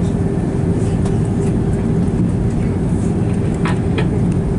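Steady low cabin rumble of an Airbus A330 airliner taxiing after landing, its engines at idle, with a faint steady hum. Two faint clicks sound near the end.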